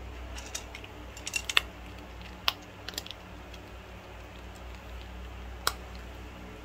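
Cat crunching dry kibble: irregular sharp, crisp crunches, with a quick cluster about a second and a half in and single crunches around two and a half, three and nearly six seconds.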